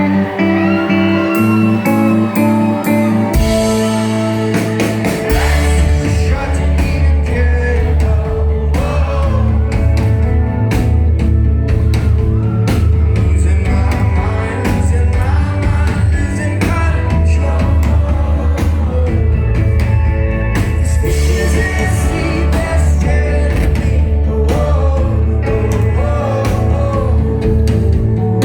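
Live rock band playing, with singing: guitar and drums, and a heavy bass line coming in about four seconds in.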